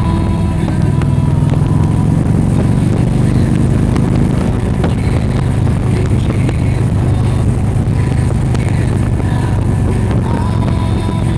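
A motor vehicle running steadily, its engine giving a low, even drone.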